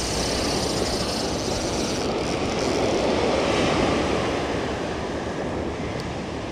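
Ocean surf rushing on the shore with wind noise, a single surge that swells to its loudest in the middle and then eases off.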